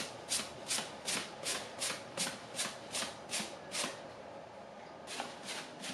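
Paintbrush bristles swishing back and forth as wet black paint is brushed onto a wooden nightstand, in quick regular strokes a bit under three a second. The strokes pause for about a second just before the four-second mark and start again near the end.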